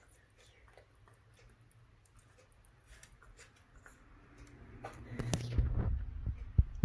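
Puppy gnawing on a chew bone held in a hand: faint scattered clicks of teeth on the bone. About five seconds in it grows louder, with low rubbing noise and a sharp knock near the end.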